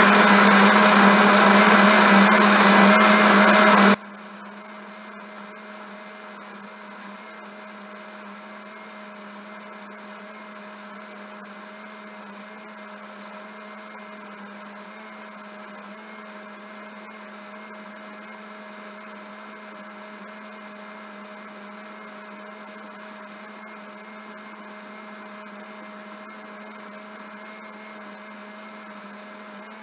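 Small electric blender running at full speed, blending fruit with water, then cutting off suddenly about four seconds in. A steady low hum remains after it stops.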